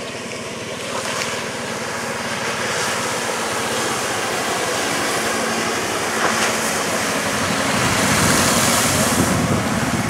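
Ski boat engine running at slalom speed, with the rushing hiss of the wake and a slalom skier's spray. It grows louder toward the end, with a burst of spray hiss near the end as the skier cuts past.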